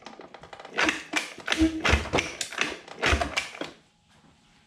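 Recoil starter of a 1972 Johnson 9.5 hp outboard being pulled to crank the engine over for a spark test, with the flywheel on and an inline spark tester on the plug lead. It comes as a rattle of quick clicks followed by several louder pulls, then stops.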